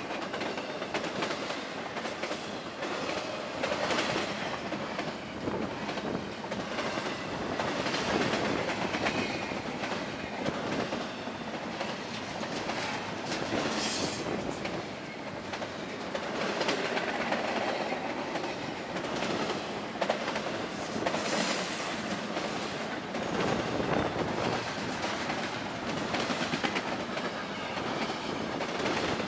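Intermodal freight train rolling past, its steel wheels clattering over the rail joints in a steady run of clacks. The wheels give short high squeals twice, about halfway through and again later.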